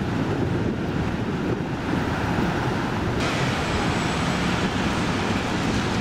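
Outdoor street noise: a steady rumble of wind buffeting the microphone over the hiss of light city traffic. About three seconds in the noise abruptly turns brighter and hissier.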